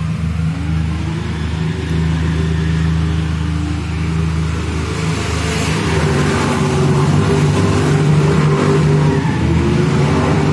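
Car engines running at a race-track start: a steady idle underneath, with an engine being revved up and down over it, the revving growing louder from about six seconds in.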